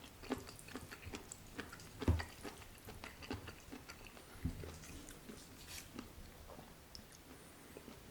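Close-miked wet chewing of Carbo Buldak noodles with chewy octopus: a steady run of small sticky clicks and smacks from the mouth, with two louder low thumps about two seconds in and about halfway, thinning out near the end.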